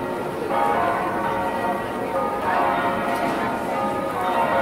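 Church bells ringing, with fresh strikes coming about every two seconds and their tones ringing on between them.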